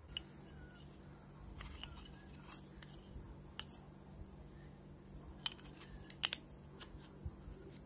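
Light clicks and taps of walnut handle blanks and a thin metal plate being handled and knocked together, the sharpest cluster about six seconds in, over a faint steady hum.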